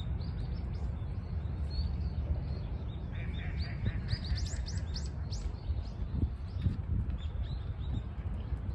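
Small birds chirping in short high calls, with a quick run of chirps about halfway through, over a steady low rumble.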